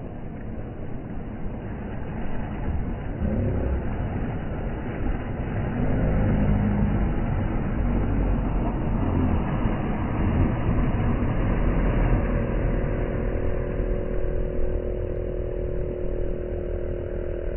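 Motorboat engine running, getting louder over the first six seconds and then holding steady, with a steady pitched engine note joining about twelve seconds in. The wash of small waves runs underneath.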